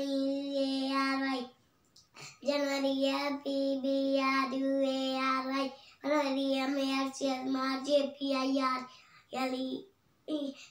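A young girl's voice chanting in a sing-song: long, drawn-out held notes in three phrases with short breaks between them, and a brief bit near the end.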